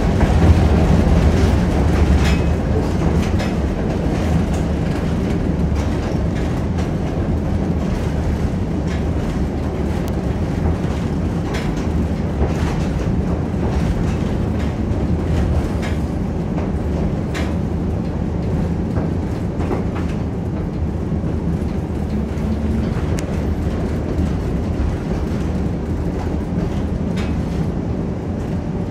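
1947 St. Louis Car Co. PCC streetcar running along its track, heard from inside the car: a steady rumble of wheels and running gear with scattered clicks and clacks from the rails. It is loudest in the first couple of seconds, then steadies.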